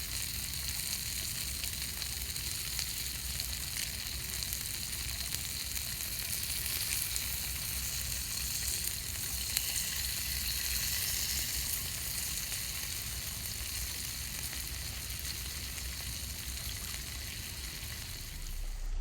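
Meat sizzling on a hot grill: a steady hiss sprinkled with small crackling pops.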